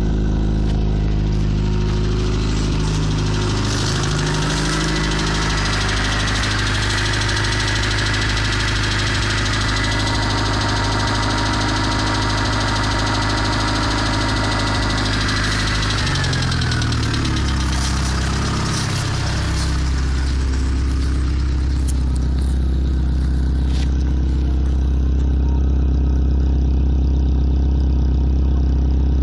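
The 1.05-litre four-cylinder AAU engine of a VW Polo 86C running with a loud rattling clatter. Its pitch shifts a few seconds in and again a little past the middle.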